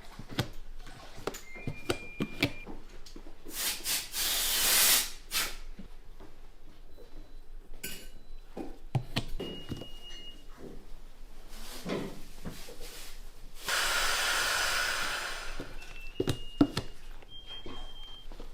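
Short, high whistle-like notes blown on a ceramic ocarina, each held for under a second at a different pitch, between clicks and taps of hand work. Twice a loud rush of hiss cuts in for a second or two.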